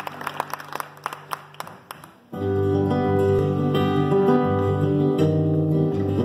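Scattered applause tapering off, then about two seconds in two acoustic guitars start playing together, loud and full.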